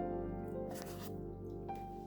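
Background music of held, sustained notes, slowly fading. A short rustling noise sounds about a second in.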